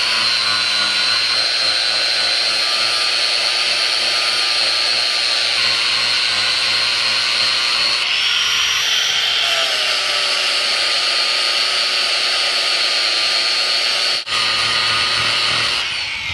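Handheld power grinder running at high speed with a steady high-pitched whine, stripping paint off an aluminum boat hull. Its pitch rises briefly about halfway, it cuts out for an instant near the end, and it starts to spin down at the very end.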